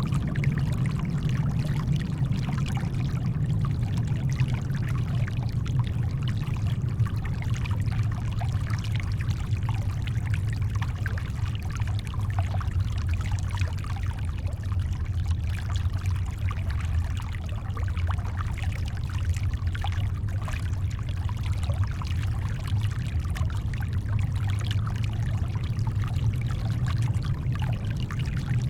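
Steady brown noise, a deep, even low hiss, layered with shoreline water that makes a fine, trickling wash over the top. The level stays the same throughout, with no waves building or breaking.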